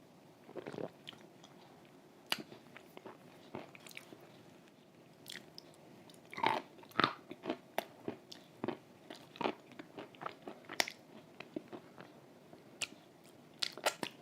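Close-miked chewing of cream-soaked Volokonovka chalk, with irregular sharp crunches that come sparsely at first and thicker from about halfway.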